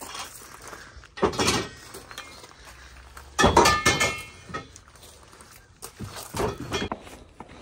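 Metal clothes-rail poles and a stool clattering and clinking as they are loaded into the back of a van. There are three bursts of knocks, the loudest about three and a half seconds in, with a brief metallic ring.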